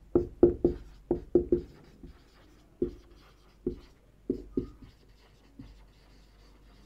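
Marker pen writing on a whiteboard: a quick run of short strokes in the first second and a half, then scattered single strokes that thin out after about five seconds.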